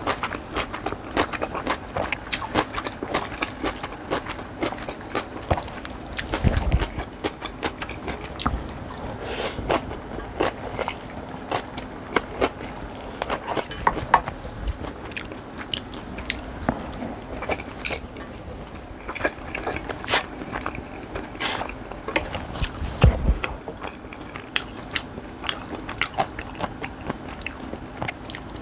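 Close-up eating sounds: a person chewing and crunching mouthfuls of bibimbap with crisp vegetable side dishes, with steady irregular crunches and wet mouth clicks. Two low thumps come about a quarter and three-quarters of the way through, over a faint steady hum.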